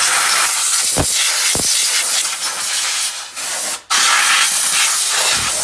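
Compressed-air blow gun hissing in a steady blast as it blows mud, brake dust and rust out of the rear parking-brake shoes. The blast cuts out briefly a little under four seconds in, then starts again.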